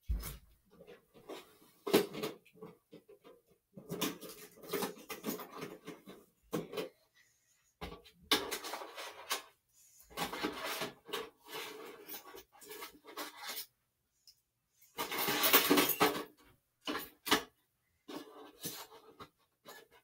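Small metal tools clattering and being rummaged through in irregular bursts, as someone searches for a top-of-the-keyway tension wrench; the longest, loudest rattle comes about three-quarters of the way in.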